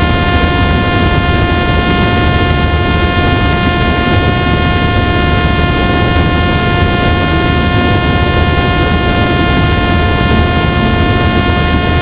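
Parrot Disco fixed-wing drone's electric motor and pusher propeller running at a steady high-pitched whine during a high-speed low pass, over heavy wind rush on the onboard microphone.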